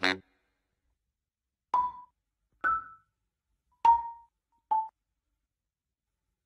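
Four short struck musical notes, each a sharp tap with a brief ring, spaced about a second apart with silence between them.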